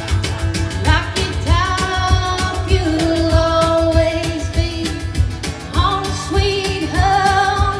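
Live band with a female lead singer, long held sung notes with vibrato over a steady drum beat.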